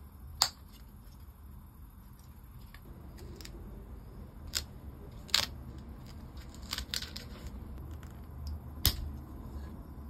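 Scattered sharp clicks and taps of plastic controller parts being handled and fitted together: shell pieces, buttons and the rubber membrane. The loudest comes about half a second in, with others near the middle and about nine seconds in.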